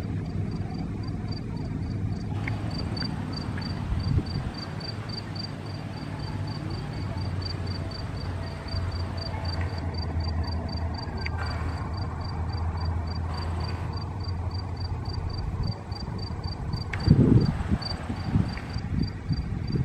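An insect chirping steadily in a high, regular pulse, about three chirps a second, over a continuous low rumble; a few louder low knocks come near the end.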